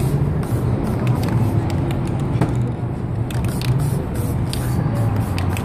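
Short, repeated bursts of spray paint hissing from an aerosol can as the artist lays down colour, over a steady low rumble of city traffic.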